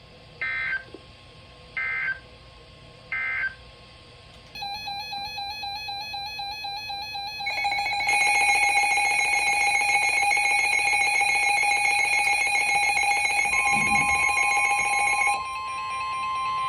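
Emergency Alert System SAME header: three short bursts of buzzy digital data tones about 1.3 seconds apart. After them comes a steady electronic alert tone that starts about four and a half seconds in, grows louder at about eight seconds and drops off near the end, with a second single steady tone coming in underneath shortly before.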